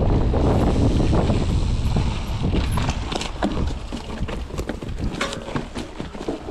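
Mondraker Foxy enduro mountain bike riding down a dirt trail: wind buffets the microphone over the rumble of the tyres on the ground. Around halfway through the rumble eases, and a run of sharp clicks and rattles from the bike and trail comes through.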